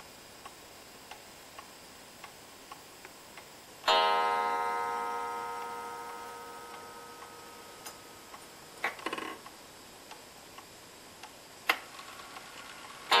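A pendulum wall clock's coiled gong is struck once about four seconds in and rings for several seconds as it fades, as the minute hand is turned past the half hour. Before that the clock ticks quietly. A few knocks and a click follow, and the gong is struck again at the very end as the hands reach the hour.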